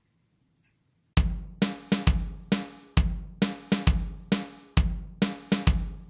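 Near silence for about a second, then background music starts with a drum beat of heavy kick and snare hits, about two to three a second.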